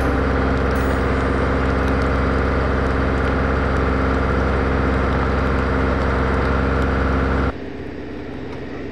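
A heavy vehicle's engine running steadily at idle, with a strong deep rumble. It cuts off suddenly near the end.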